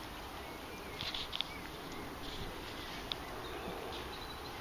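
Faint outdoor background noise with a few short, high chirps and some light ticks about a second in.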